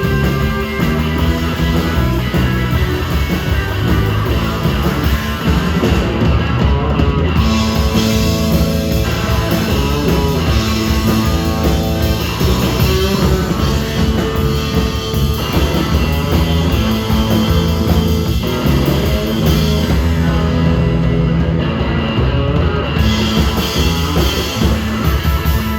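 Rock band playing an instrumental: electric guitar through a 1959 Fender Bassman amplifier over a drum kit, with a moving low line underneath.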